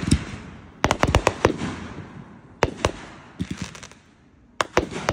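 Aerial fireworks bursting: a quick run of sharp bangs and crackles about a second in, then scattered bangs and a crackling patter, a short lull, and a few more bangs near the end.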